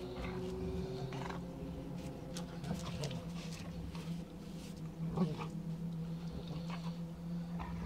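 Dogs growling low and steadily while play-fighting, a Caucasian shepherd puppy and a large curly-coated poodle-type dog. A few short, sharper sounds cut in, the loudest about five seconds in.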